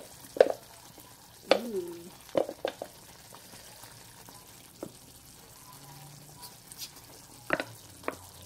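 Wooden spoon stirring thick breadfruit porridge in a metal saucepan, knocking and scraping against the pot in short, irregular strikes, over a faint steady hiss.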